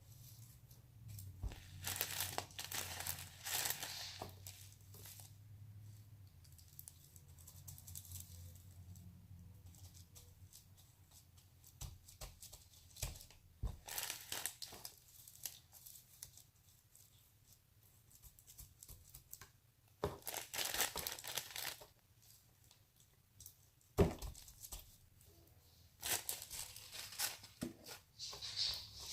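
Homemade slime worked by hand, giving several bursts of sticky crackling and tearing as it is stretched and squished. There is a sharp click about 24 seconds in.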